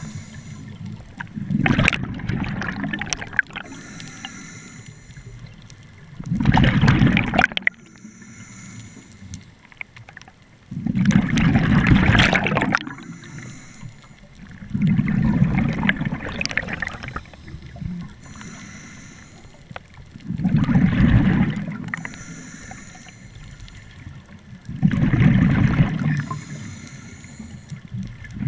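Scuba diver breathing through a regulator, heard underwater: six rushes of exhaled bubbles, about one every four to five seconds, each lasting a second or two, with a faint hiss of inhalation between them.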